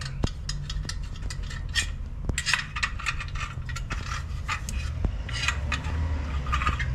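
Loose metal tools and small parts clinking and scraping against each other on a workbench: a string of light, irregular taps and clicks.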